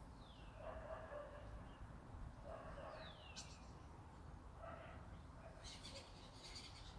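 Faint distant animal calls, several in a row a couple of seconds apart, some with a short high falling note.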